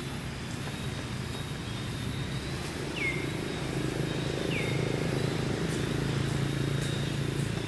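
A steady, low engine drone, like a distant aircraft or motor, growing a little louder about three seconds in. Two short chirps that slide downward sound about a second and a half apart partway through.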